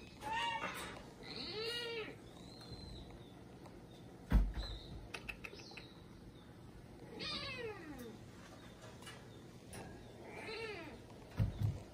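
Small kitten meowing about five times in short, high, arching calls, one near the middle falling in pitch. A sharp thump comes about four seconds in, and soft knocks come near the end.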